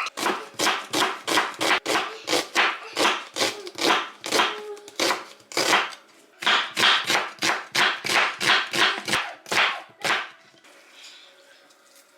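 Knife chopping on a cutting board in a steady rhythm of about three to four strokes a second, stopping about ten seconds in.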